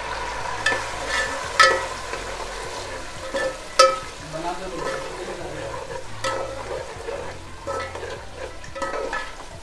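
Tomatoes frying with fried onions in hot ghee in a large aluminium pot. A metal perforated spoon stirs and scrapes through them, clinking against the pot's side with short ringing knocks. The sharpest knocks come about one and a half and four seconds in.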